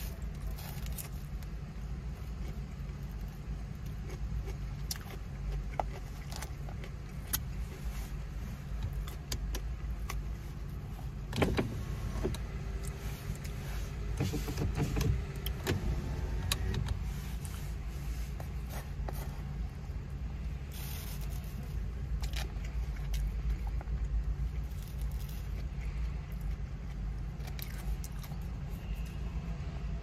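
Chewing, with a plastic fork clicking and scraping in a foam takeout box, over the steady low rumble of a car running.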